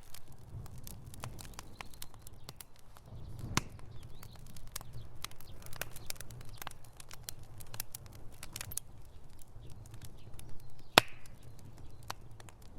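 Fireplace fire crackling: irregular sharp pops and snaps over a steady low rumble, with one louder pop near the end.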